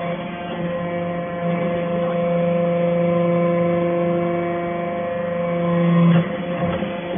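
Hydraulic power unit of a metal-chip briquetting press running with a steady hum made of several fixed tones. The hum swells, then its lowest note drops away suddenly about six seconds in, with a faint knock.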